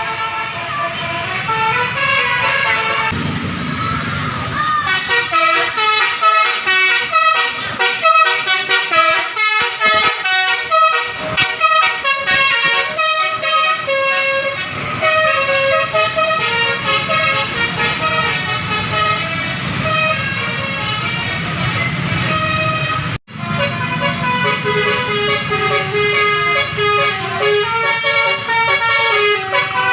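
Basuri telolet multi-tone bus air horn with roof-mounted trumpets, playing a fast melody of short stepping notes over and over. It breaks off for an instant about 23 seconds in, then the melody carries on.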